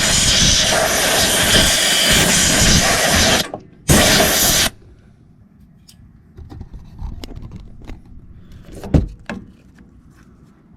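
Compressed-air blow gun blasting dirt off the coilover top mount in a long burst, then a short second burst about four seconds in. A few light clicks and knocks follow.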